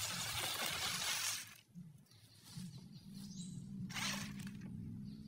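Small electric RC off-road car driving over grass: its wheels brush through the grass with a rustling hiss, which drops away briefly under two seconds in. After that the small motor and gears hum steadily, with one short rustle of the tyres about four seconds in.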